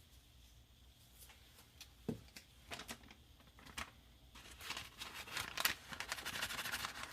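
Kitchen handling noises while spices are measured out: a few light clicks and a dull knock, then from about four seconds in a longer stretch of scratchy rustling and scraping with many small clicks.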